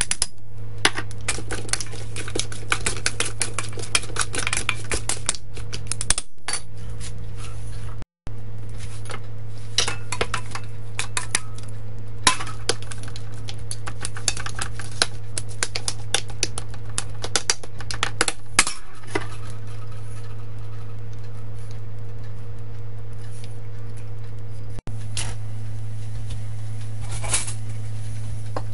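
Metal utensils and dishes clinking and scraping: a metal spoon against a plate and a stainless steel bowl, and a metal pan being handled. The clinks are short and irregular, over a steady low hum.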